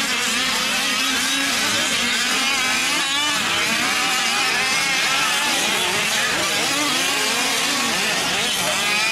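Several small two-stroke engines of 5th-scale gas RC off-road trucks racing together, their pitches rising and falling as they rev and back off.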